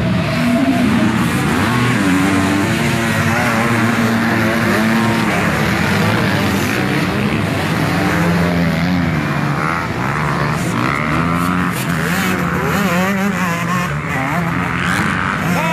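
Several motocross bikes racing past on a dirt track, their engines overlapping and revving up and down as the riders accelerate and shift through a corner.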